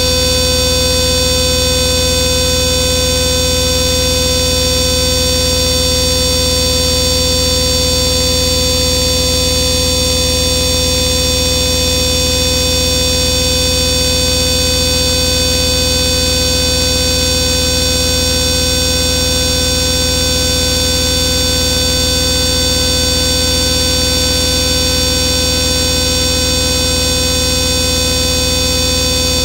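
Modular synthesizer playing a dense, steady electronic noise drone: many sustained tones stacked over hiss, with one mid-pitched tone slowly wavering. It holds unchanged at a loud level throughout.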